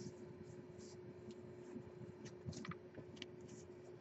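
Faint rustles and light ticks of trading cards being handled, a small cluster of them past the middle, over a steady faint hum.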